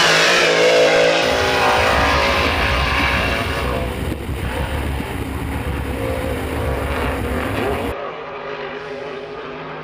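Grand Prix class racing hydroplane engine running flat out. It starts as a high engine whine, becomes a deep, heavy rumble from about a second in, and turns quieter and more distant about eight seconds in.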